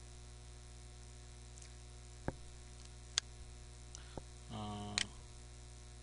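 Steady electrical mains hum picked up by the recording setup. A few sharp clicks are heard, and a short, low, steady tone lasts about half a second around four and a half seconds in.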